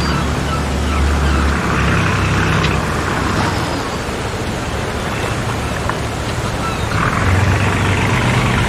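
An outdoor crowd: a steady low rumble with scattered distant voices.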